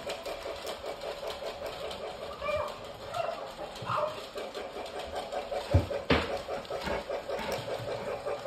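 Disney Christmas toy train running around its track, a steady rapid clicking, while a dog gives a few short whines. Two sharp knocks stand out about six seconds in.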